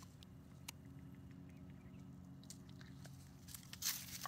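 Dog chewing on something hard on the ground: faint crunches and snaps, a few scattered at first, then a quicker run of crunching near the end.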